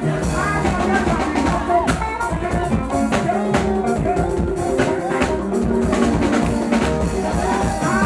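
Live band playing upbeat gospel music, with the drum kit to the fore.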